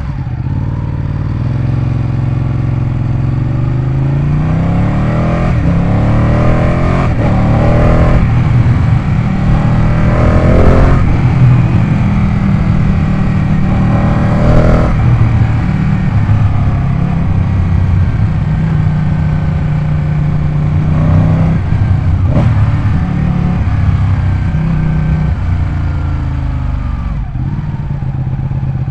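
Ducati 899 Panigale's 898 cc Superquadro L-twin engine running loud, with the revs swept up and back down several times in throttle blips.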